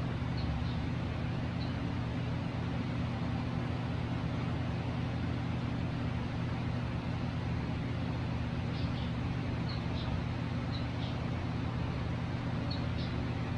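A steady low mechanical hum with no change in level, with short high chirps from pet birds scattered through it: a few in the first couple of seconds and more from about nine seconds on.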